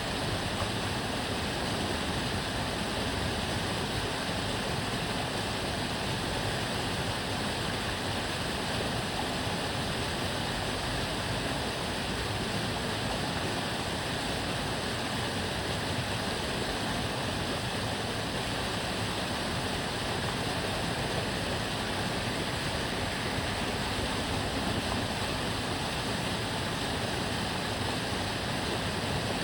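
Water of a small canal flowing and babbling steadily, an even rushing noise.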